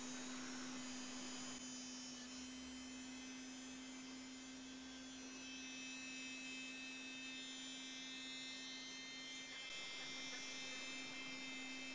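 MAST Gizmo hair straightener vibrating as it is drawn slowly down a lock of hair: a faint, steady electric hum.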